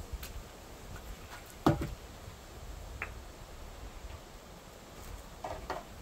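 Wooden knocks of larch boards being handled and set down: one sharp, loud knock about a second and a half in, a faint click, then two lighter knocks near the end.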